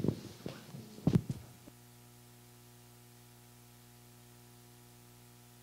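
A few brief room sounds, the loudest a short thump about a second in. Then, starting abruptly, a faint steady electrical hum: a buzz of several even tones.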